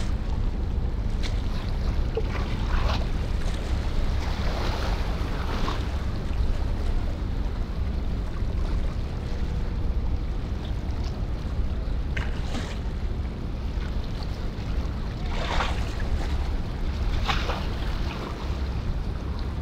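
Wind on the microphone, a steady low rumble, with small waves splashing against the shore several times.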